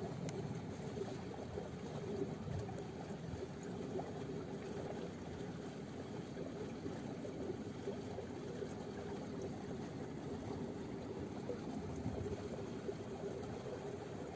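Quiet, steady outdoor background: a faint even rush with a low steady hum under it, and no distinct events.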